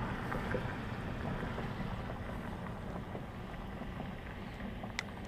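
Steady low rumble of wind and water around a fishing boat, with one sharp click near the end.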